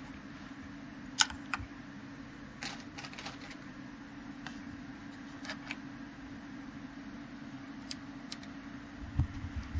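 Sharp mechanical clicks and taps from the Pioneer PL-X300 mini turntable's push-button controls and automatic mechanism, scattered over a steady low hum, with a couple of dull thumps near the end.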